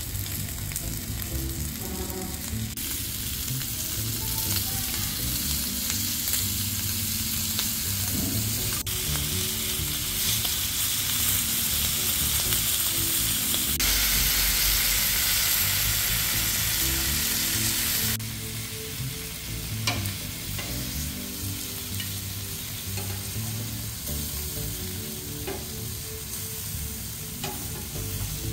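Sauce-glazed pork belly sizzling on a cast-iron grill pan in a continuous hiss. The hiss swells louder about halfway through for some four seconds, then drops back, with a few light clicks in the second half.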